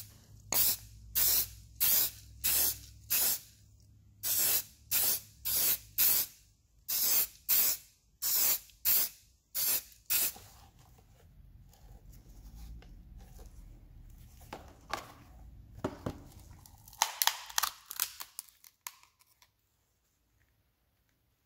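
Short hisses of spray paint, one pass after another at about two a second. After that come quieter handling noises, and near the end a quick run of shorter spray bursts.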